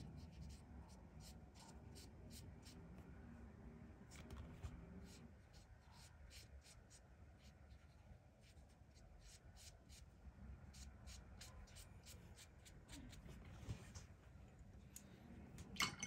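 Faint, scratchy strokes of a colouring tool working across paper, laying down a first layer of colour.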